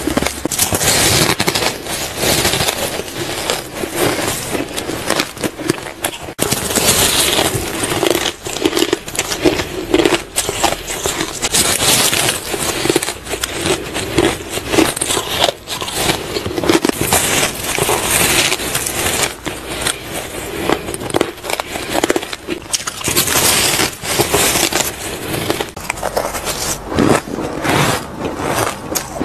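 Shaved ice being bitten and crunched between the teeth, a dense, continuous run of crisp crackles and scrapes.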